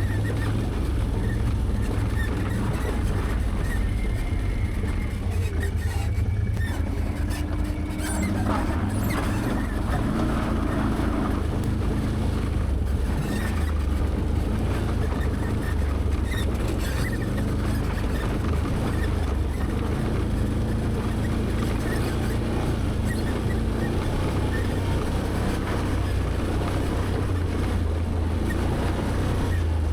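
Can-Am Outlander 850XT ATV's V-twin engine running steadily at low speed, with a few knocks from the machine going over rough ground.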